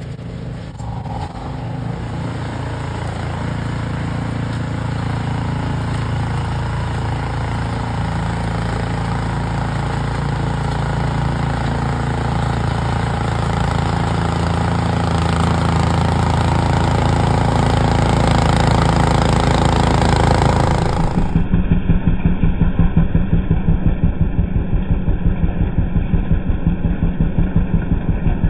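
Cub Cadet 3X three-stage snow blower's engine running steadily under load while its augers and impeller throw snow out of the chute, growing louder as the machine comes closer. About three-quarters of the way through, the engine is suddenly heard close up with a rapid, even pulsing beat.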